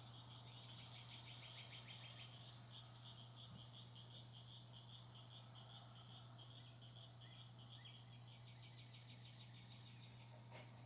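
Faint insects chirping in rapid, high pulsed trills over a steady low hum, with one brief click near the end.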